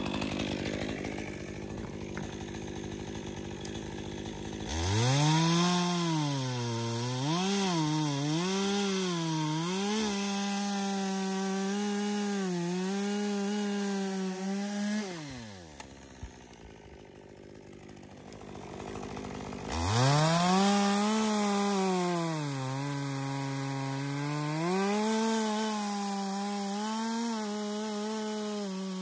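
Stihl MS 201 two-stroke chainsaw cutting through a fallen tree trunk: it idles, then is throttled up to full speed about five seconds in, its pitch dipping and recovering as the chain bites into the wood. About halfway through it drops back to idle for a few seconds, then goes to full throttle again for a second cut that dips under load in the same way.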